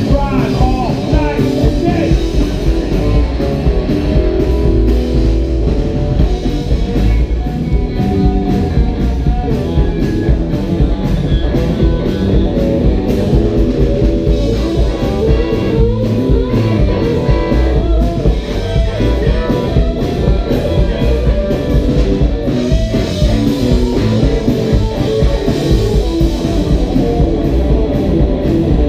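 Rockabilly band playing live: Telecaster-style electric guitar, electric bass and drum kit, loud with a steady, even beat.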